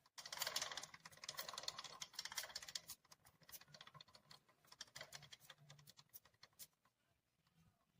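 Aerosol can of AMSOIL chain lube being shaken, the mixing ball inside rattling in a fast, dense run of clicks for about three seconds, then slower, scattered clicks.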